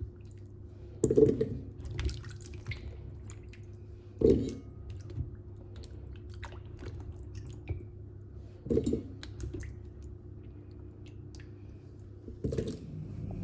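Kitchen work sounds: scattered small clicks and a few dull knocks, with light wet handling, over a steady low hum.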